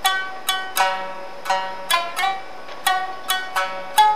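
Background music: a melody of plucked string notes, about two to three a second, each ringing out and fading.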